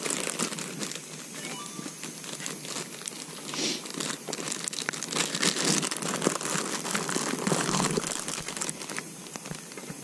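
A plastic bag crinkling and rustling as it is handled, an irregular crackle that swells and fades throughout.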